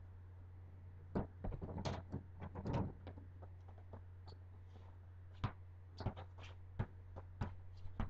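Irregular thuds and knocks of a ball being kicked and bounced on paving slabs, in two flurries, over a steady low hum.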